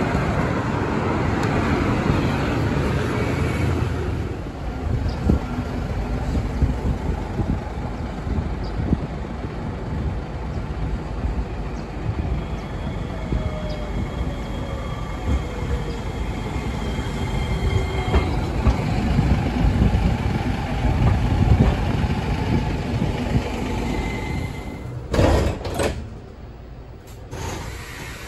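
Road traffic and a streetcar coming along street-running tracks: tyre and wheel noise with a slowly falling electric whine as the tram slows. Near the end comes a sharp clatter of doors, then the quieter sound of the tram interior.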